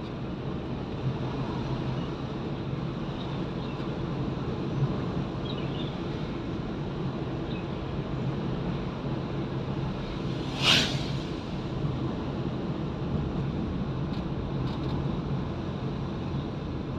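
Steady low engine and tyre rumble heard from inside a car driving on a paved road. About ten and a half seconds in there is one brief, sharp hiss.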